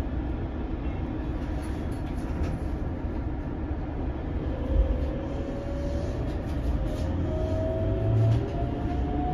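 Keikyu 600 series electric train's Toyo GTO-VVVF traction inverter whining as the train pulls away, its pitch rising steadily from about halfway, with a second, higher tone joining near the end, over a low rumble of wheels on rail, heard from inside the car.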